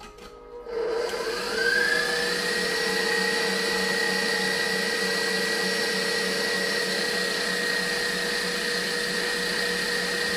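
An electric kitchen appliance motor switching on, its whine rising over about a second as it comes up to speed, then running steadily.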